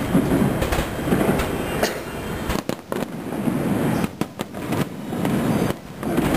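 Aerial fireworks shells launching and bursting in quick succession: a dense run of bangs and crackling, with a few brief drops in level midway.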